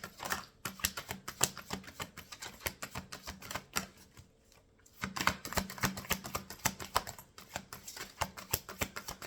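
A deck of oracle cards being shuffled by hand: a fast run of crisp card flicks that stops for about a second near the middle, then starts again.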